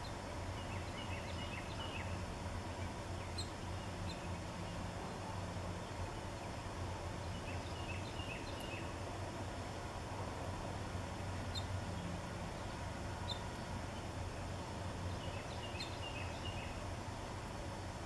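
A small songbird sings a short phrase of quick, high notes three times, about every seven seconds, with a few single high chips in between, over a steady low background hum.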